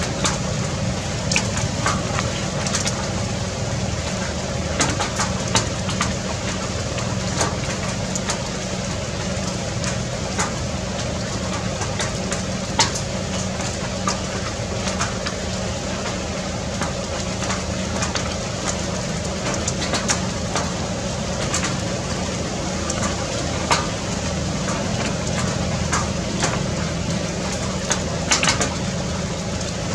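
Steady low mechanical drone, with scattered short clicks throughout.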